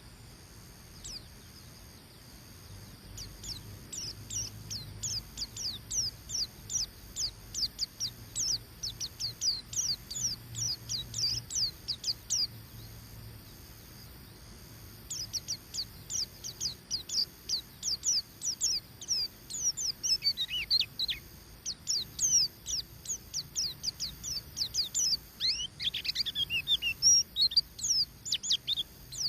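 White-eye (pleci) singing in the rapid 'ngeriwik' style: long runs of short, high, downward-sliding chirps, about four or five a second. They break off for a couple of seconds just before the middle, then resume with a few busier, tangled phrases.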